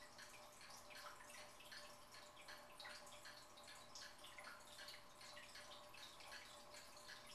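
Faint fish-tank water trickling and dripping, a run of small irregular drips and splashes, over a low steady hum.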